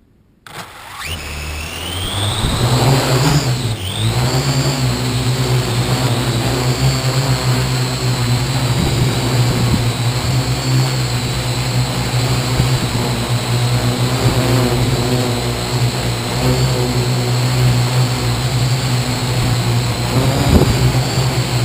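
Parrot AR.Drone 2.0 quadcopter's four electric motors and propellers spinning up from standstill about half a second in with a rising whine, then running at a steady hum with a high whine as it flies, heard from on board the drone.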